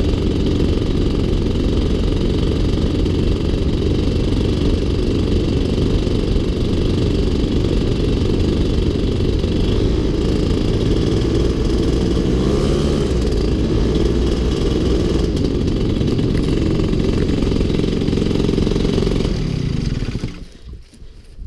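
Loud steady drone of a paraglider flying low and fast over a field, heavy in the low end. It drops away sharply about twenty seconds in as the glider touches down on the grass.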